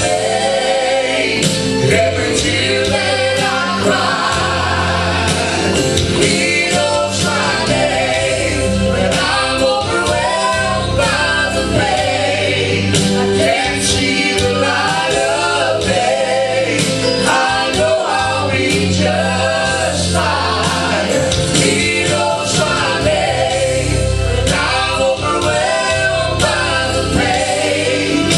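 Live gospel music: singing voices with band accompaniment, loud and continuous.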